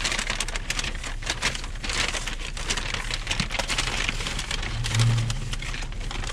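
Paper takeout bag and food wrappers rustling and crinkling as they are rummaged through, many small crackles, with a brief low hum about five seconds in.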